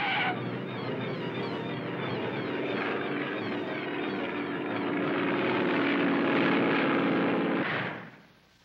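Cartoon propeller airplane engine running with a steady drone, which cuts off abruptly near the end.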